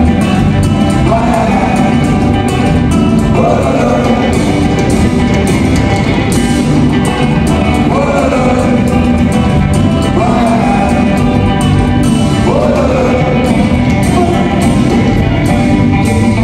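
Live band playing with a lead singer over electric guitars, the sung phrases sliding up in pitch every couple of seconds.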